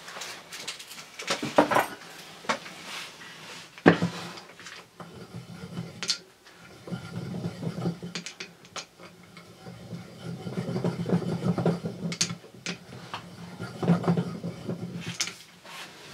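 Wooden automaton set down on a table with a few sharp wooden knocks, then hand-cranked: its wooden crank, shaft and turntable mechanism runs with a low, continuous rattling clatter and scattered clicks for about ten seconds, stopping near the end.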